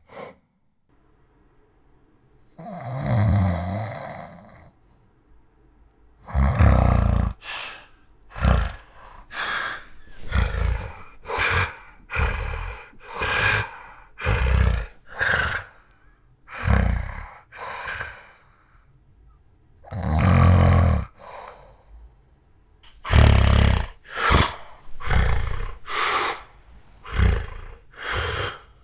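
A man snoring loudly in his sleep with sleep apnea, in the uploader's own account. There are silent pauses of a couple of seconds, one long heavy breath, and then a run of short loud snorts and gasping breaths about one a second.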